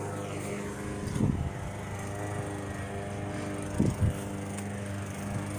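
A small motor or engine hums steadily, with two short low thumps, one about a second in and one about four seconds in.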